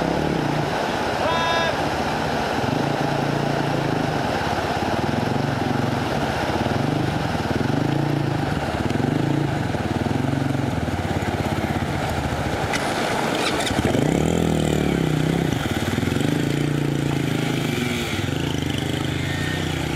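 Small motorcycle engines revving up and down again and again, roughly once a second, as the bikes wade through a shallow river. A sharper rising rev comes about two-thirds of the way through, over the steady rush of flowing water.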